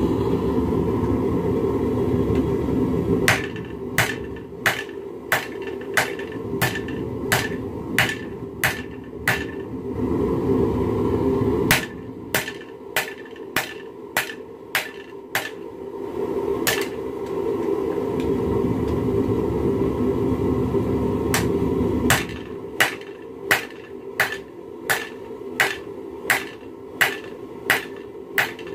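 Hand hammer striking a red-hot railroad spike on a steel anvil as it is forged into a knife. The blows come in three runs of about a blow and a half a second, with one lone strike between the second and third runs. A steady low rushing noise fills the pauses between runs.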